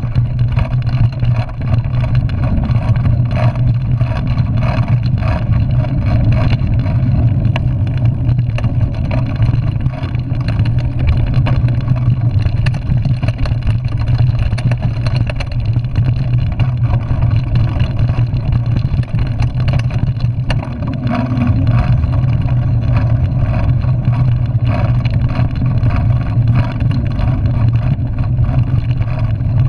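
Wind and tyre noise picked up by a mountain bike's handlebar-mounted action camera while riding over dirt trail, a steady low noise with scattered knocks and rattles from the bike over bumps.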